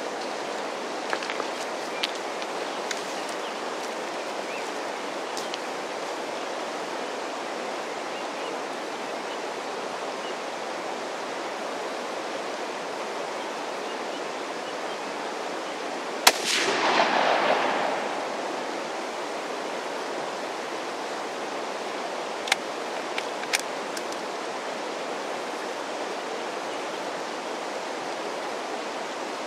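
Steady rush of a creek, broken a little past halfway by a single sharp rifle shot from a Sako .223 whose report rolls away over a second or so. A few short clicks come before it and two more some seconds after.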